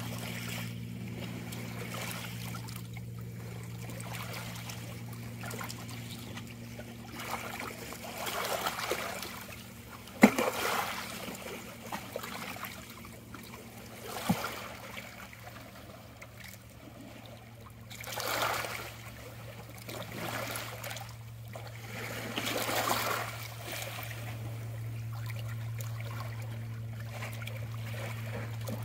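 Small waves lapping and trickling around shoreline rocks in shallow water, coming in soft swells every few seconds over a steady low hum. A sharp click is heard about ten seconds in, and a smaller one a few seconds later.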